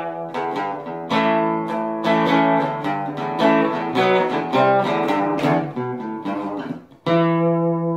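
Background music on acoustic guitar: picked notes, then a final chord struck about seven seconds in that rings on and slowly fades.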